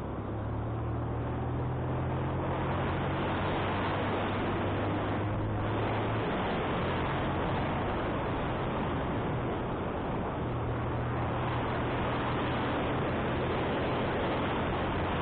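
Steady wind rushing over the microphone of a motorcycle riding uphill, with the engine's low hum beneath it. The engine note fades about six seconds in and comes back a few seconds later.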